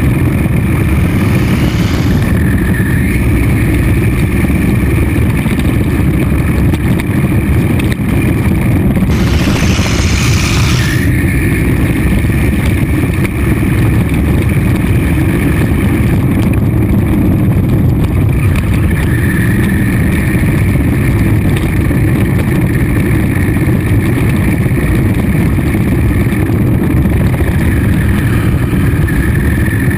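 Steady, loud vehicle engine rumble with no breaks, and a brief rushing hiss about nine seconds in.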